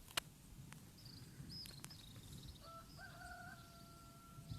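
Faint birdsong: small birds chirping, a sharp click just after the start, and a rooster crowing in one long held call that begins a little past halfway.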